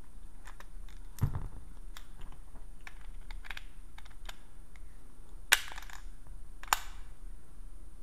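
Ruger GP100 .357 Magnum revolver being reloaded with a speedloader: a run of small metallic clicks and clacks as the cylinder is swung out, the empty cases are dumped and fresh rounds are loaded. There is a duller knock about a second in and two sharper, louder clacks a little past the middle.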